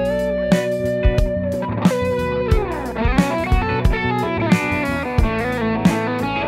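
Donner DST-400 electric guitar played with a pick: held, ringing notes with a quick run of falling notes about halfway through.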